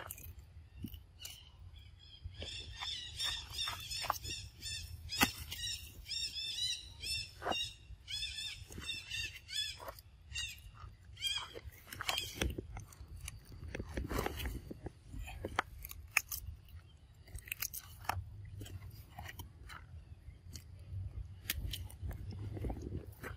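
Macaques eating cucumber, with crunching bites and chewing clicks throughout. For about ten seconds in the first half, a run of high, wavering chirping calls sounds over it.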